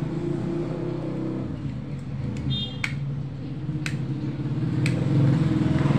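An engine running steadily in the background with an even low pulse, under a few sharp clicks about a second apart from a small tool prying at the LED bulb's circuit board.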